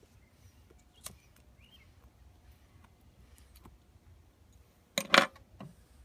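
Quiet background with a small sharp click about a second in, then two loud sharp clicks close together about five seconds in, followed by a softer one.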